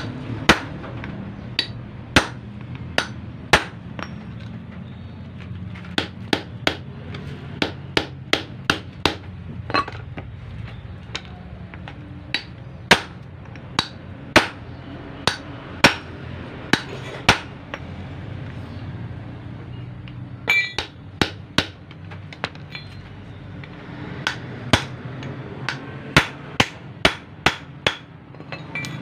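Hammer striking metal again and again: sharp single blows at uneven spacing, some in quick runs of two to four, with a steady low hum underneath.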